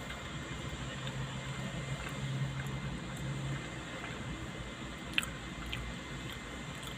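Someone quietly chewing a mouthful of fried chicken burger over a steady low hum, with a small click about five seconds in.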